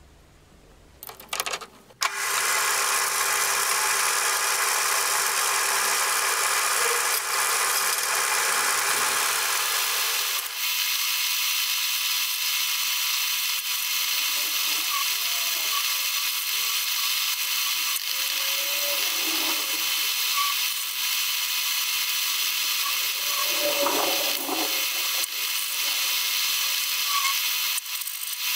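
Metal lathe running and turning a brass bar, the cutting tool in the cut: a loud, steady whine and hiss with several steady tones. About ten seconds in the lower part of the sound drops away, leaving a higher steady hiss with a few short wavering noises from the cut.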